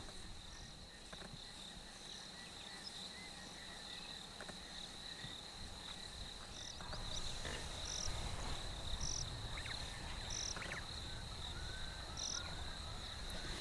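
Steady high-pitched drone of an insect chorus, crickets, with short higher chirps repeating about once a second from about halfway through.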